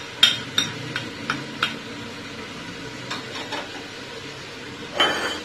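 Wooden spoon stirring a frying onion-tomato masala in an aluminium pot, tapping against the pot several times in the first two seconds and again about three seconds in, over a steady sizzle. A short, louder scrape near the end.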